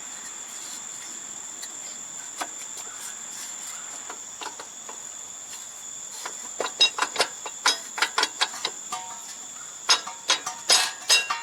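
A steady high-pitched cricket trill runs throughout. From about halfway in, a quick irregular series of sharp metallic clicks and clinks comes from tools and brake parts being handled and fitted, some of them with a brief ring.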